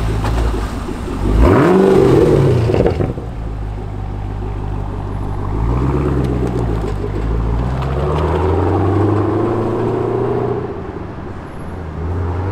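2012 Chevrolet Camaro SS's LS3 V8 with a Borla exhaust pulling away: a quick rev, rising and falling in pitch, about one and a half seconds in is the loudest moment. It then runs steadily under light throttle as the car drives off, swelling again later on.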